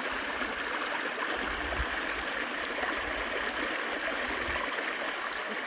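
A stream crossing the trail, flowing steadily: a continuous rushing of water.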